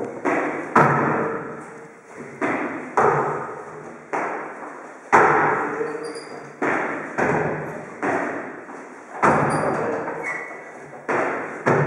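Box jumps on a hollow wooden plyo box: feet land with a thud on the box and then on the floor, about one thud a second. Each thud rings out and dies away in the bare room.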